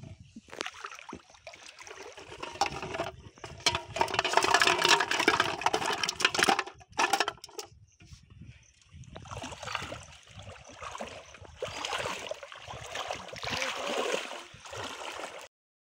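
Shallow pond water splashing and sloshing as a person wades and pushes a metal pot through it. It comes in two long stretches with a short lull between them and cuts off suddenly near the end.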